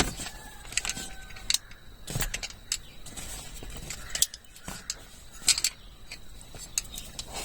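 Scattered light clicks and metallic clinks of a new car seat belt assembly being handled, its metal fittings knocking together at irregular moments.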